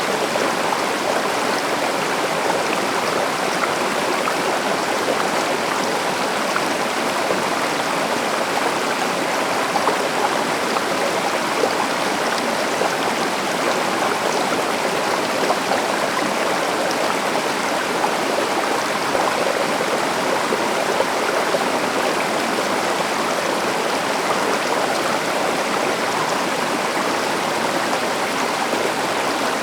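River water flowing and splashing over rocks in a steady rush, with small splashes flickering through it.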